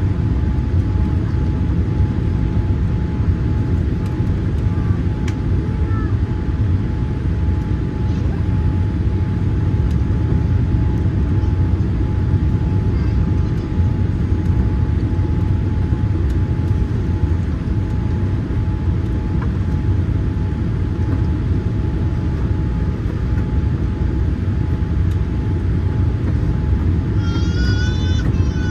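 Boeing 787-8 cabin noise on final approach: a steady low rumble of engines and airflow with two faint steady tones running through it. A brief high, wavering sound comes near the end.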